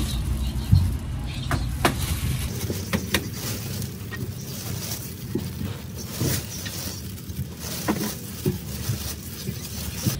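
Road traffic passing by the stall, its low rumble dropping away about two and a half seconds in. Scattered light knocks and plastic crackles come from guavas being picked off the shelf with a plastic-gloved hand.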